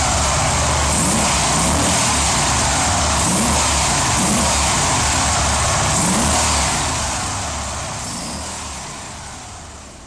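Motorcycle engine revving, its pitch rising and falling several times, then fading away over the last few seconds.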